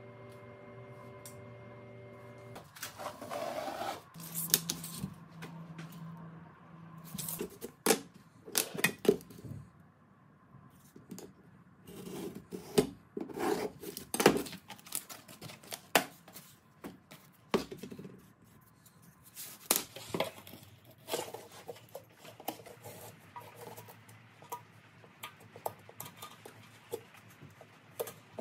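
Cardboard template, ruler and hand tools being handled at a workbench and under a vehicle: irregular sharp taps, clicks and short scraping rubs. A steady hum in the first couple of seconds stops abruptly.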